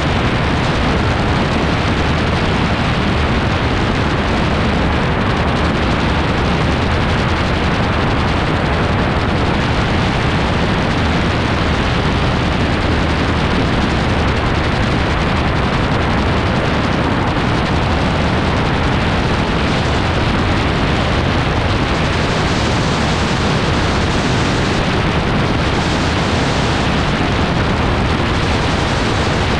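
AutoGyro MTOfree gyroplane in cruising flight: a loud, unbroken rush of wind over the microphone with a steady engine drone beneath it.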